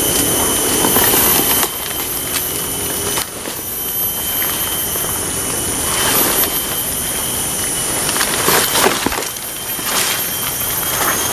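Footsteps and brushing through leaf litter and forest undergrowth, in irregular scattered rustles, over a steady high-pitched whine.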